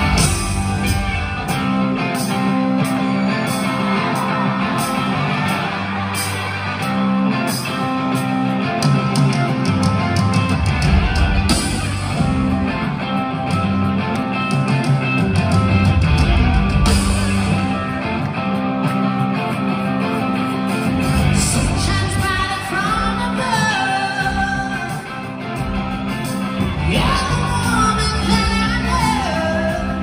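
Rock band playing live in a large hall, heard from the audience: electric guitar, bass and drums, with a singer's voice rising in pitch after about twenty seconds.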